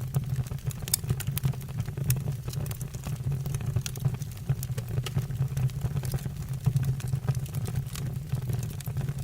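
Wood fire burning in a fireplace: a steady low rumble of flames with irregular sharp crackles and pops from the burning logs, several a second.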